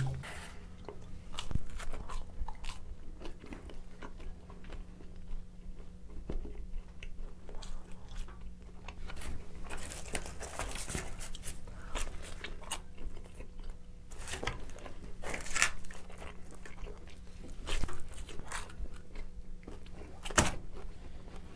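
Close-miked eating of pizza: irregular bites and chewing with small crunching clicks, and a sharper bite into a slice near the end.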